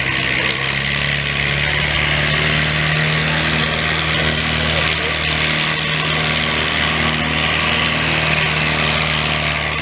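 Older tractor's diesel engine running hard at steady revs under heavy load, dragging a weight-transfer pulling sled.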